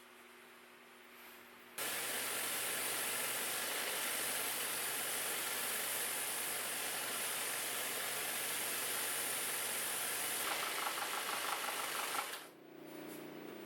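A woodworking power tool running with a steady hiss. It cuts in suddenly about two seconds in, turns to a fast flutter near the end, then stops, leaving a low hum.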